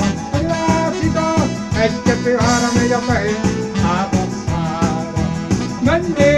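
A man singing into a microphone over accompanying music with a steady beat.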